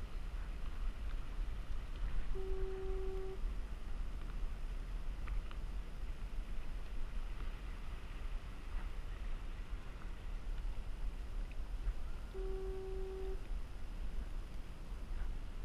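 Harbor fog signal sounding twice, a steady mid-pitched horn blast of about one second each time, ten seconds apart, over a steady low rumble.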